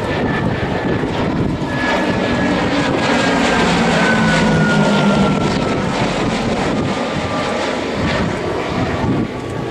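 Twin Allison V-12 piston engines of a P-38 Lightning growing louder as it flies past, then fading, with the engine note dropping steadily in pitch as it passes.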